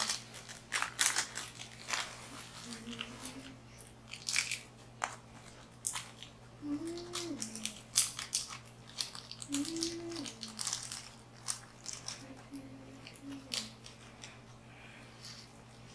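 Textured slime with crunchy beads being squeezed and pressed by hand, giving irregular crackling and crunching clicks.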